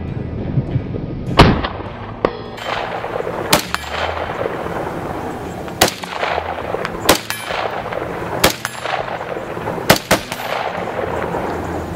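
Scoped AR-15-style rifle firing single shots: about seven sharp reports spaced one to two seconds apart, the loudest about a second and a half in.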